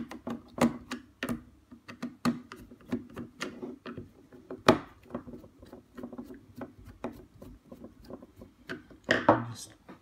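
Phillips screwdriver backing small screws out of a plastic robot body: a run of quick, sharp clicks and ticks as the tip catches and turns in the screw heads. One louder click comes about halfway through, and a short clatter comes near the end.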